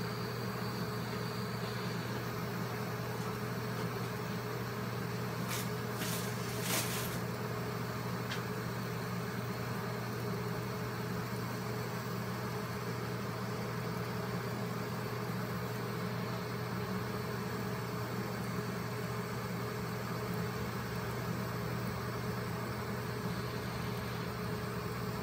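Steady hiss of a handheld butane torch flame held against dry palm-leaf thatch, over a steady low hum. A few sharp clicks about six seconds in.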